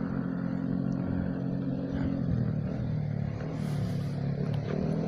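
An engine running steadily with a low hum, its pitch dropping a little about halfway through and rising again near the end.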